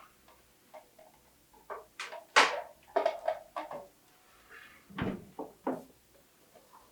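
Kitchen handling sounds: a run of sharp knocks and clatters, loudest about two and a half seconds in, with a duller thump about five seconds in.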